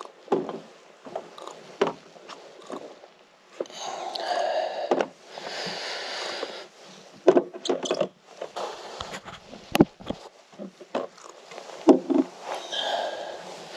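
Handling noises on a boat deck: rustling and scraping in bursts, with a string of sharp knocks against the hull, the loudest in the second half.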